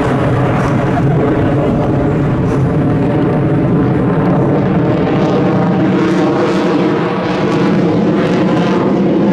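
Fighter jet flying overhead, its engines a loud, steady roar.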